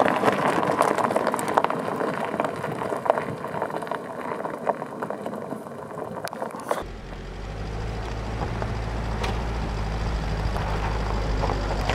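A rough, crunching and clattering noise full of sharp clicks. About seven seconds in it changes abruptly to a steady, low engine drone, an engine left running.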